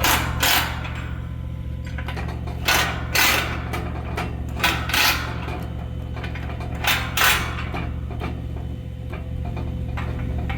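Hydraulic C-clamp tool being worked to close a grooved pipe clamp, giving pairs of short mechanical clacks about every two seconds over a steady low hum.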